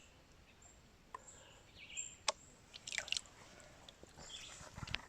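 Gold pan being worked by hand: faint swishing of water with a few sharp clicks of gravel against the pan.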